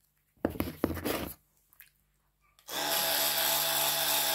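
An electric toothbrush is switched on about two and a half seconds in and runs with a steady buzz while brushing teeth. Before that come about a second of handling knocks and rustling.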